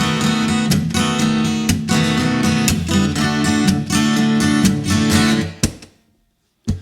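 Acoustic guitar strummed in a steady rhythm during an instrumental break in a song. Near the end the sound cuts out suddenly for about half a second, then a strum comes back in.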